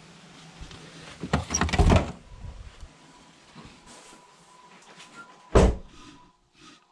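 A door's knob and latch clicking and the door opening about a second and a half in. About five and a half seconds in, one heavy thump as the door shuts.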